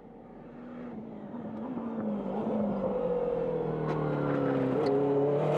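McLaren MP4-12C GT3 race car's twin-turbo V8 engine, getting steadily louder as the car approaches. Its note falls in pitch, with a short blip near the end.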